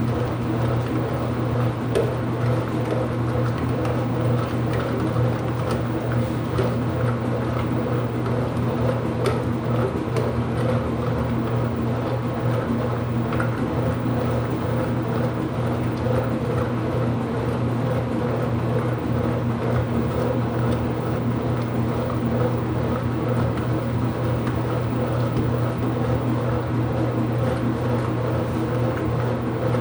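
IPSO washing machine running mid-cycle: a steady, unchanging machine hum with some water movement.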